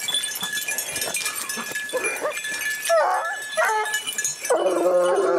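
Gascon Saintongeois hounds giving tongue while working a wild boar's scent: short cries about two and three seconds in, then a longer drawn-out howl near the end.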